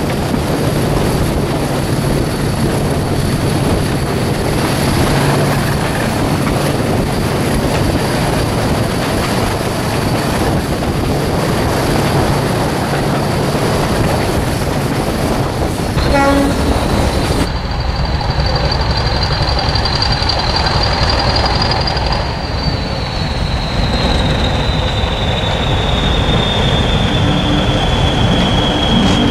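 Class 55 Deltic diesel locomotive under way, heard from the train: a heavy engine note from its two-stroke Napier Deltic engines mixed with wheel-and-rail noise and a steady high whine. About halfway through the sound cuts to a diesel locomotive passing lineside with coaches, its engine rumbling under a single high whistling tone that holds, then slides slowly lower.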